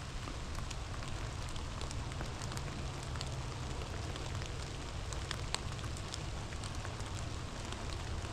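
Steady rain, with individual drops ticking sharply now and then, over a constant low rumble.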